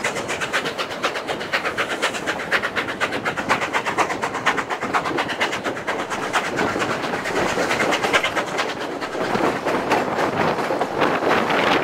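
Narrow-gauge railway passenger car rolling along the track, its wheels clattering in a rapid, even run of clicks on the rails.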